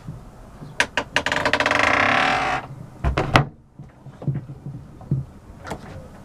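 A wooden-framed cabin door in a small yacht interior creaking for about two seconds as it swings, then several sharp knocks and a latch click as it is shut, followed by a few light knocks and handling sounds.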